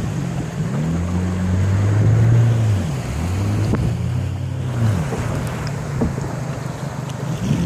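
Outboard engine of a river longboat running, its pitch rising and falling every second or two as the throttle is eased and opened, over a steady rush of river water and wind.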